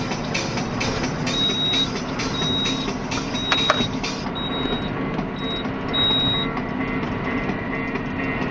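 Tractor engine running steadily under load with the regular knock of a Massey Ferguson 2150 big square baler working behind it, heard from inside the tractor cab. From about a second in, a short high electronic beep sounds about six times, roughly once a second, with a sharp click near the middle.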